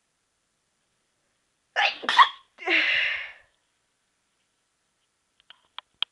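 A person's stifled sneeze about two seconds in: two sharp bursts, the second the louder, followed by a short breathy rush of air. A few faint clicks near the end.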